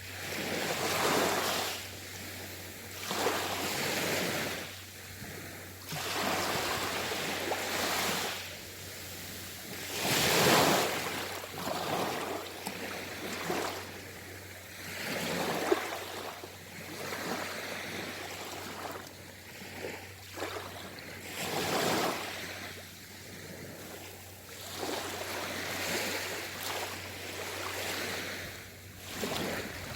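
Sea waves washing onto a shore, each wash swelling and fading every two to three seconds, the biggest about ten seconds in.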